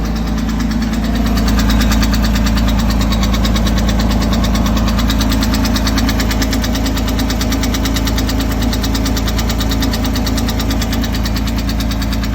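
2006 Porsche 987 Boxster's flat-six engine running steadily with a fast, even knocking from the valvetrain. The knock comes from a stuck valve lifter that had damaged the intake camshaft.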